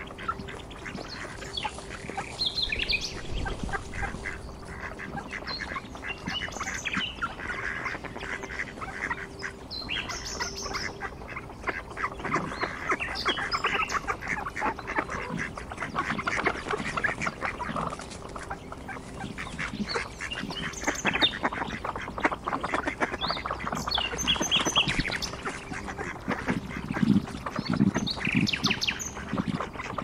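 A group of ducks calling continually: many short, overlapping calls, some higher and chirp-like.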